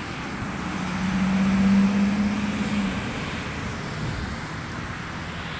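A road vehicle passes close by over street traffic noise, its steady low hum swelling to a peak about two seconds in and fading out a second later.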